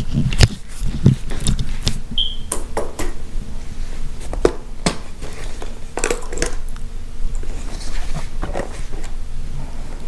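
Handling noise from a hard-shell scooter bag and its hard plastic bracket: irregular clicks, knocks and rustles as they are picked up and turned over.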